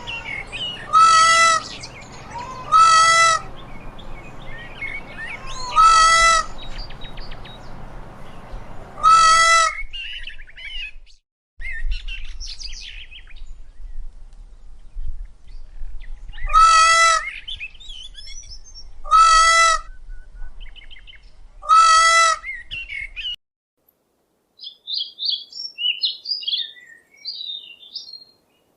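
Indian peafowl (peacock) calling: seven loud, wavering calls, each about half a second long, spaced a few seconds apart, with fainter gliding bird calls behind the early ones. After a brief silence, a different recording of small birds chirping high and quickly.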